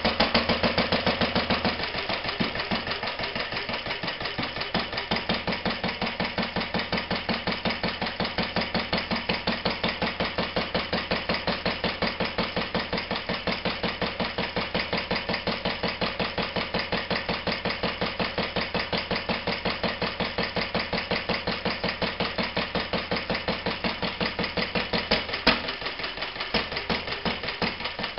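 1949 Lister D 1.5 hp single-cylinder stationary engine running steadily, with an even, regular firing beat. One sharp click cuts across it near the end.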